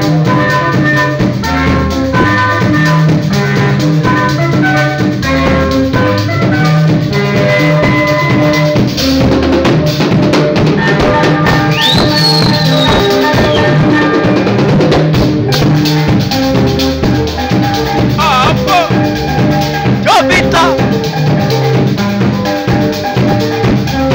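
Live band playing: a drum kit keeping a steady beat under electric guitar and bass guitar lines, with a few high sliding notes in the second half.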